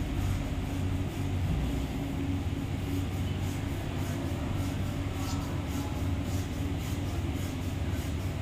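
Steady low mechanical hum, even in level, with a deep drone and a fainter higher tone over it.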